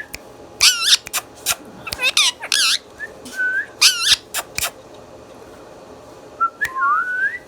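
Indian ringneck parrot giving several shrill, wavering screeches and short whistles, with sharp clicks in between. Near the end a whistle slides up in pitch.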